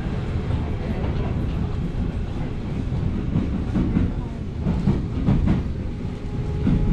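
Tokyo Metro Hibiya Line subway train running, heard from inside the car: a steady rumble of wheels on rails with clicks over the rail joints, several of them coming close together a little past the middle.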